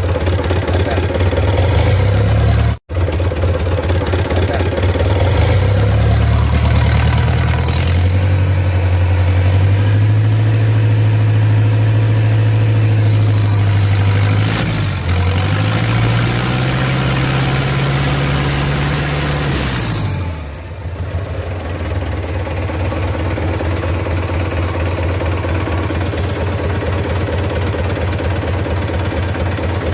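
Rebuilt Mitsubishi 4D32 four-cylinder diesel engine on a test run being throttled up: it rises from idle, holds high revs, dips briefly, revs up again, then drops back to a steady idle about twenty seconds in. The sound cuts out for a split second about three seconds in.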